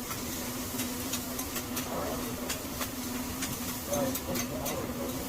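Restaurant room noise: a steady low hum with scattered light clicks and faint, distant chatter.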